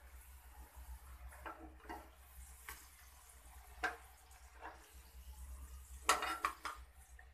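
A perforated steel skimmer clinking and scraping against a wok while pieces of food deep-fry in hot oil with a faint sizzle. The knocks come every second or so, with a louder clatter about six seconds in.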